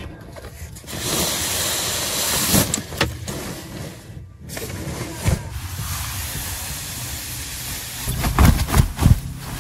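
Steady hissing noise, broken by a short gap about four seconds in, with a few knocks and thuds near the end.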